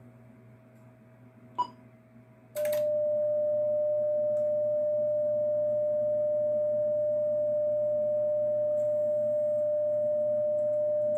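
Icom IC-775DSP transceiver keyed up in CW mode: a click, a sharper relay click, then a steady single-pitched sidetone held unbroken for about eight seconds while it sends a carrier for the internal antenna tuner to tune on.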